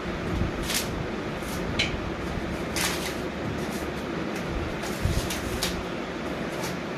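Scattered sharp clicks and light knocks as a bicycle's saddle and seat post are handled and fitted, over a steady background rumble.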